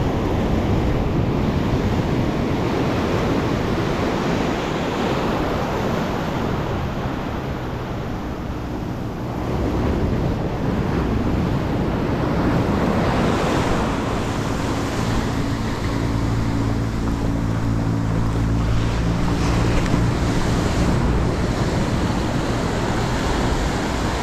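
Ocean surf breaking and washing up over the sand, a steady rushing wash that eases a little then swells again about ten seconds in as another wave comes up.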